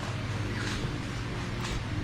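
Steady low electrical hum of room tone, with a few faint, short clicks.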